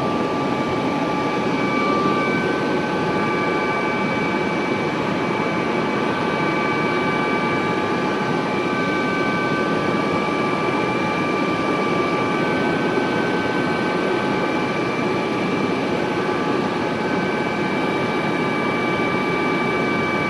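Police helicopter in flight, heard from on board: a steady, loud rush of engine and rotor noise with a few steady high whining tones over it.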